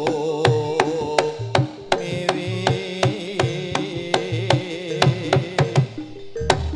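Live jaranan music: a Javanese ensemble with sharp drum strokes about three a second under a wavering, pitched melody line.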